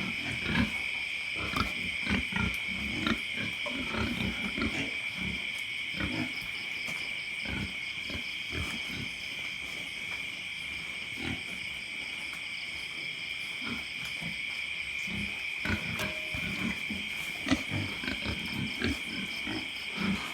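Pigs snoring in their pen in irregular low rumbles, thicker near the start and end and sparse in the middle. A loud, steady, high-pitched chorus of night insects runs under them.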